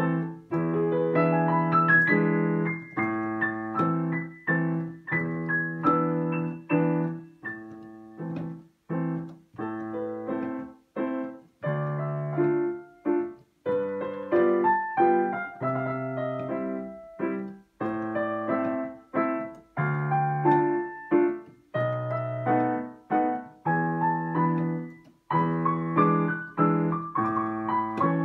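Yamaha digital piano played with both hands: a melody over low held chords, the notes struck and fading, with brief breaks between phrases.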